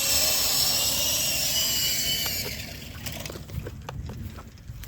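Toy RC helicopter's electric motor and rotors whining at a steady high pitch, then cutting off abruptly about two and a half seconds in. A few light clicks and knocks follow.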